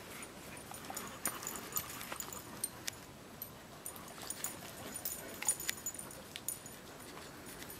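A group of dogs playing on a gravel path: faint scuffing and a scatter of short clicks from their paws and movements, with quiet dog sounds.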